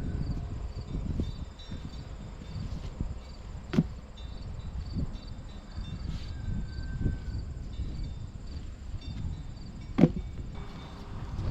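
Crickets chirping in a steady rhythm over a low rumble, with several dull thumps, the loudest about four seconds in and about ten seconds in: old tires being thrown off a silage pile.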